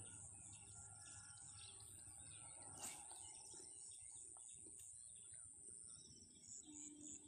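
Faint bird chirps over quiet open-air ambience, with a steady high-pitched hiss and a single brief click about three seconds in.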